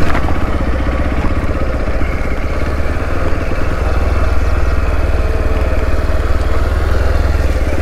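Motorcycle engine running steadily at low speed on a slippery, muddy track, with an even, unbroken beat and no revving up or down.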